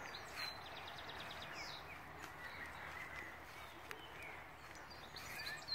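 A small songbird singing over a steady outdoor background hiss. Its phrase, a rapid trill followed by a few short chirping notes, comes just after the start and again near the end.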